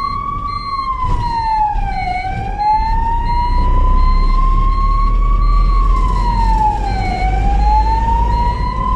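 Ambulance siren wailing, its pitch climbing slowly and then dropping sharply twice, about five seconds apart, with a high beep pulsing about twice a second over the steady low rumble of the moving vehicle.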